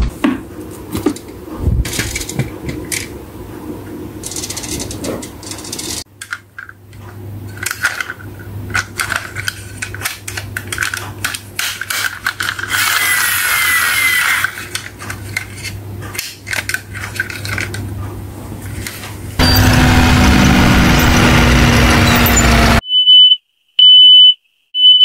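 Glass marbles clattering and rolling, then clicks and rattles of a plastic toy dump truck being handled and pushed across a tabletop. Near the end a loud, steady rush of noise cuts off sharply, followed by three short, high, evenly spaced beeps like a race-start countdown.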